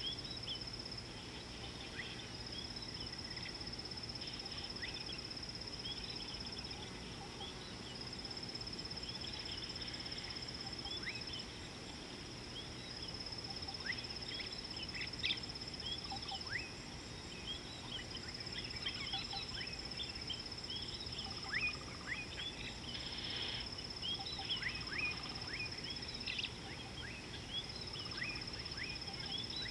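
Outdoor bush ambience: a steady high-pitched insect trill that runs in long phrases of several seconds with brief breaks, under many short bird chirps and calls, busier in the second half.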